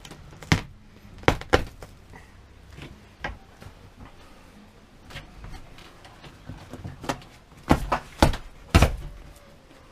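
Sharp knocks and thuds at irregular intervals, a few early and a louder cluster of three near the end, from work prying up carpet stapled to a camper's wooden floor.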